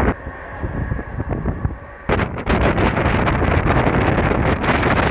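Wind buffeting the phone's microphone at the open door of a moving train, over the train's steady running rumble. The buffeting falls away for about two seconds just after the start, then returns hard in rapid gusts.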